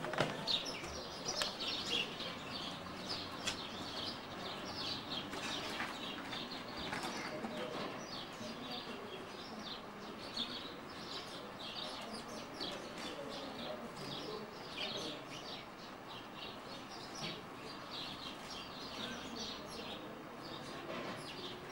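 Small birds chirping: many short, high calls overlapping without a break, with a few brief knocks in the first second.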